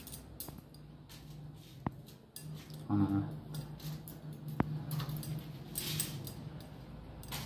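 Steel plates and utensils being handled, with light clinks and two sharp clinks about two and four and a half seconds in, over a steady low hum.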